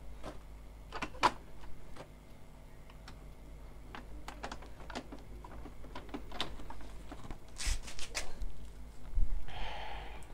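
Scattered plastic clicks and taps from the ink tank unit of an Epson L3110 printer as it is handled and refitted with hands and a screwdriver. The sharpest click comes about a second in, and a denser run of clicks with a brief rustle comes near the end.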